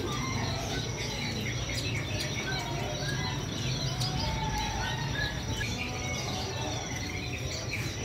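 Many caged songbirds chirping and calling at once, short scattered chirps overlapping all through, over a steady high pulsing trill and a low hum.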